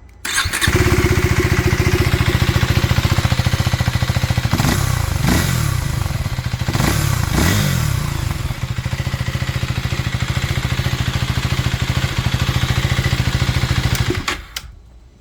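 2024 KTM Duke 390 Gen 3's single-cylinder engine running through its stock exhaust: idling steadily, blipped up and down a few times between about five and eight seconds in, then idling again until it is switched off about fourteen seconds in.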